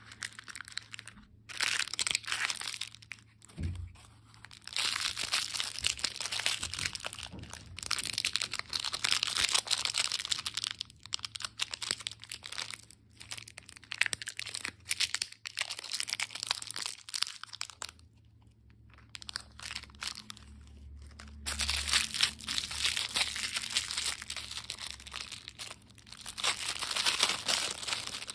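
Plastic candy wrappers crinkling and being torn open, in long stretches broken by short pauses.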